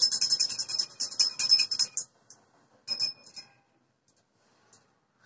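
Puja handbell rung rapidly in a fast ringing shake that stops about two seconds in, followed by a short second shake around three seconds.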